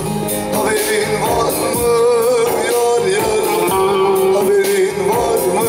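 Live Turkish folk song from the Teke region: a bağlama (long-necked saz) played with keyboard accompaniment and a male voice singing a long, ornamented melodic line.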